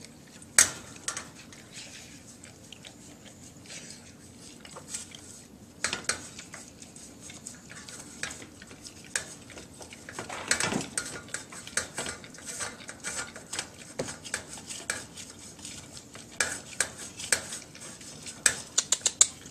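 Dog working at a stainless steel bowl with its muzzle: irregular metallic clinks and scrapes of the bowl, with a quick run of clicks near the end.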